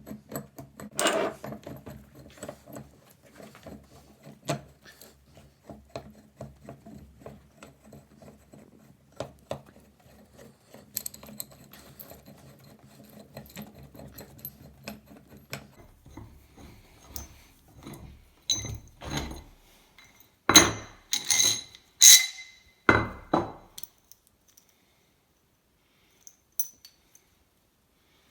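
Metal vise parts and hand tools being handled, with irregular small clinks and knocks with a metallic ring. Several louder clanks come about two-thirds of the way through, then it goes quiet.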